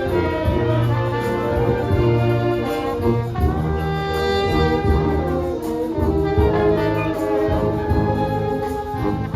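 Filipino brass band (banda) playing a medley of Manila sound pop songs, the horns carrying the melody in held notes over a steady beat.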